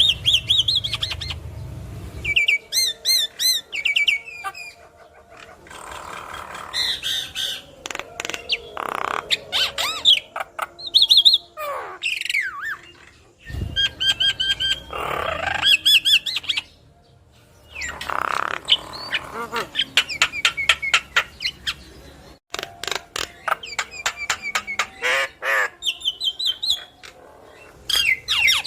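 Javan myna singing a long, varied chattering song: harsh squawks, fast clicking rattles and warbling whistled phrases, in bursts broken by short pauses.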